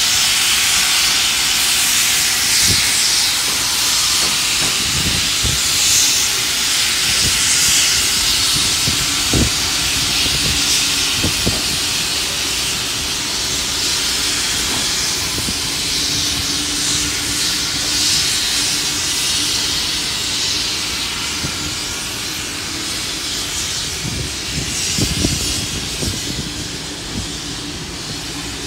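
Heritage steam locomotive 5917 departing, a loud steady hiss of steam that swells now and then, with scattered low knocks from the old carriages' wheels rolling slowly past. A faint steady hum comes in about halfway, and the whole sound fades a little toward the end as the train draws away.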